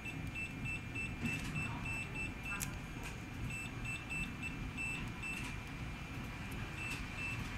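Keypad buzzer on an air-cushion film machine's control panel beeping in runs of short high beeps, about three a second, as the menu keys are pressed to scroll through settings. A faint steady high whine runs underneath.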